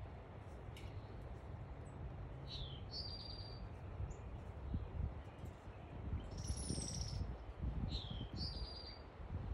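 Backyard songbirds chirping: a short falling chirp followed by a quick buzzy trill, heard twice, with a higher slurred call between them. A steady low rumble runs underneath.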